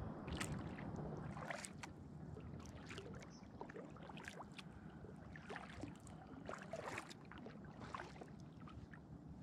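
Quiet water sounds around a kayak: scattered small splashes and drips against the hull over a low steady background.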